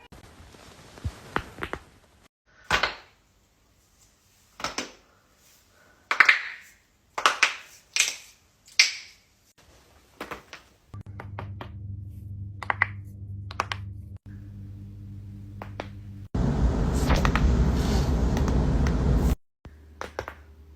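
Neck joints cracking and popping during chiropractic adjustments: a string of a dozen or so sharp cracks over the first ten seconds. After that a steady low hum runs under a few fainter pops, broken near the end by a loud rushing noise of about three seconds.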